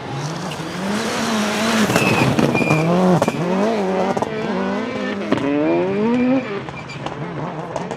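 Rally car engine revving hard, its pitch climbing and dropping repeatedly through gear changes, loudest in the middle as the car passes close, with a brief tyre squeal.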